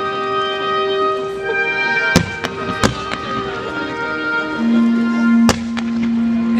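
Music with long held notes plays over a fireworks display, broken by several sharp firework bangs: two about two and three seconds in, and another about five and a half seconds in.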